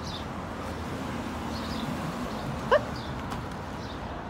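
A dog gives one short rising whine a little under three seconds in, over a steady low background noise.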